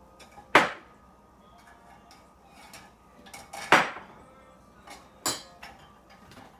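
Dishes and cutlery being taken out of a dishwasher and set down: two sharp clatters about three seconds apart, a third a little later, and lighter clinks in between.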